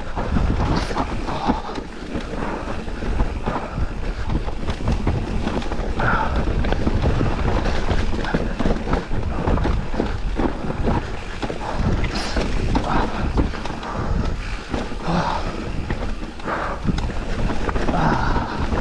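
Specialized Turbo Levo electric mountain bike riding fast down a rough trail: wind buffeting the camera microphone over the rumble of tyres on dirt, with frequent knocks and rattles from the bike as it hits bumps.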